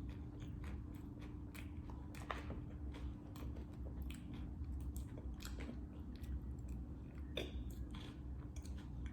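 Close-up mouth sounds of a person chewing a creamy chocolate cake with a crispy Ovaltine crunch topping, with many small irregular crunches and crackles from the crisp bits.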